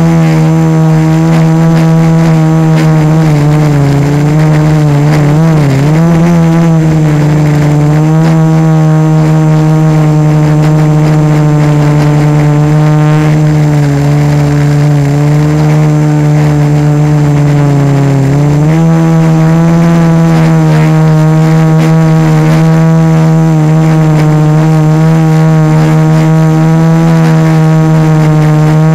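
Four A2212 1000Kv brushless motors spinning 1045 propellers on a quadcopter, heard from a camera fixed directly to the frame: a loud, steady whine. Its pitch wavers about four to six seconds in, sinks slowly through the middle, then steps back up about two-thirds of the way through as the motor speed changes.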